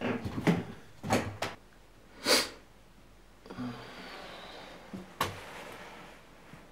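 Footsteps in a small room: several knocks of steps in the first second and a half, a brief rustle, then one more knock about five seconds in.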